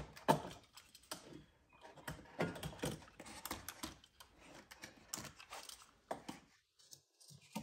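Knife blade cutting and scraping at a plastic dash panel while trimming round vent holes: a run of short, irregular clicks and scratches, easing off for a moment near the end.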